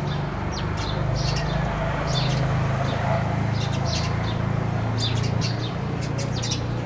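House sparrows chirping: short high chirps in scattered clusters, over a steady low hum.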